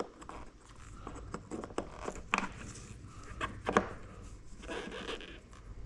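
Motorcycle parts being handled and fitted by hand: a few sharp clicks and knocks, with a short stretch of rubbing near the end.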